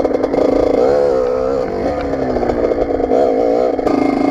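Kawasaki KX80's small two-stroke single-cylinder engine running under way, its pitch rising and falling with the throttle.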